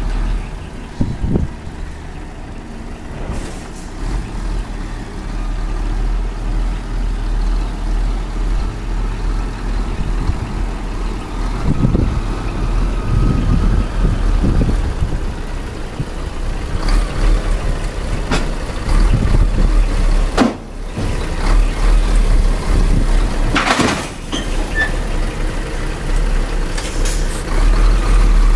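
Scania R420 tractor unit's straight-six diesel running at low revs as the truck reverses and manoeuvres under a semi-trailer, with several short air-brake hisses in the second half.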